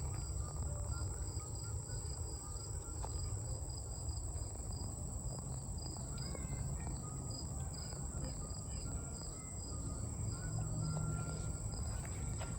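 Outdoor insect chorus: one insect trills steadily at a high pitch while another gives short chirps at an even rhythm. A low rumble runs underneath.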